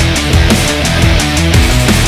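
Background hard rock music with a steady, driving drum beat.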